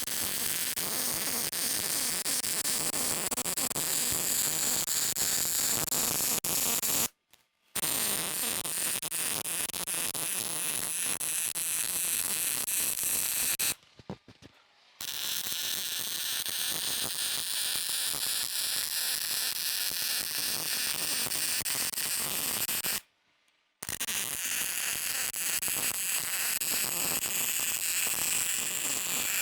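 Arc welding on steel bumper parts: the weld arc crackles and sizzles steadily in four long beads, each cut off sharply, with brief pauses about 7 seconds in, around 14 seconds in, and about 23 seconds in.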